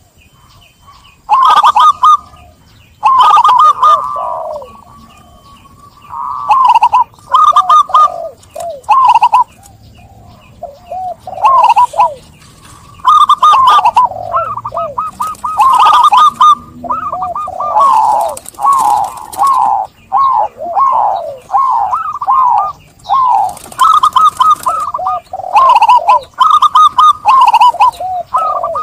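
Zebra doves (perkutut) cooing in short repeated phrases, sparse at first, then several birds calling over each other through most of the second half, with short high chirps among the coos.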